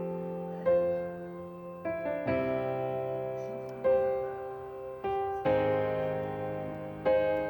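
Solo piano music: slow chords struck about once a second, each ringing and fading away before the next.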